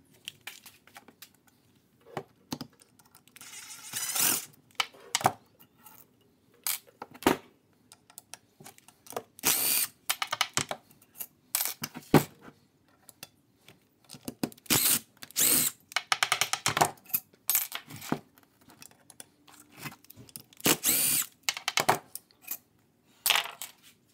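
Cordless impact driver with a quarter-inch socket running in several short bursts, backing the through-bolt nuts off an HVAC condenser fan motor so it can be taken apart. Between runs there are small metallic clicks and clinks of the nuts and bolts being handled and set down on the bench.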